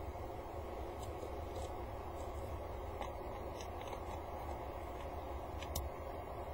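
Scattered small clicks of gravel pebbles as a peregrine falcon picks at and moves over the gravel floor of its nest box, the loudest click near the end. A steady low hum runs underneath.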